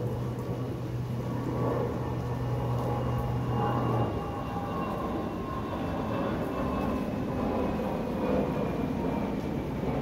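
Steady rain falling in a forest by a lake. Under it is a low steady hum that cuts off about four seconds in, and a faint high tone slowly falls in pitch.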